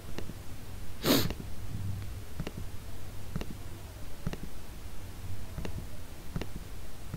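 Computer mouse clicking about once a second, stepping a paused JavaScript debugger line by line, over a low steady hum. About a second in, the loudest sound is one short, sharp breath noise from the person at the computer.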